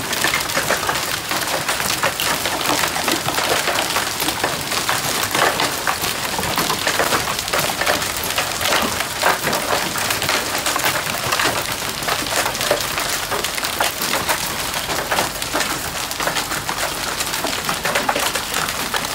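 Large hailstones, about golf-ball size, pelting pavement and parked cars along with rain: a dense, steady crackle of countless impacts.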